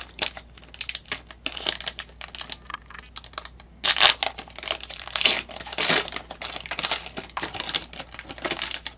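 Foil wrapper of a trading card pack crinkling and tearing as it is opened by hand: a quick, dense crackle throughout, louder about four seconds in and again around six seconds in.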